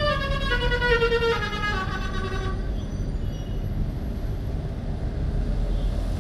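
Bus's musical horn playing a short tune of several held notes, which stops about two and a half seconds in; a low vehicle rumble runs underneath and carries on after it.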